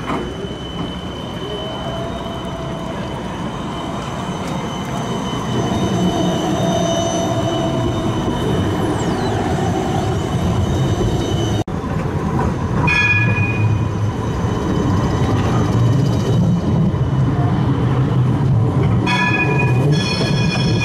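Siemens Combino trams running on street track, a steady rumble of wheels and traction gear with a faint high whine, breaking off abruptly about halfway and picking up again with a second tram. A multi-tone ringing signal sounds briefly about two seconds after the break and again near the end.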